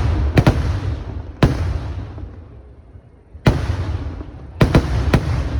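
Festival fireworks exploding: about six loud bangs at uneven intervals, two close together near the start, each followed by a long low rumbling echo.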